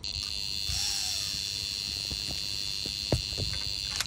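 Carp Pro Hastam electronic bite alarm sounding one continuous high tone: a fish is running with the line, a full take. A knock sounds about three seconds in, and the tone stops near the end as the rod is lifted from the pod.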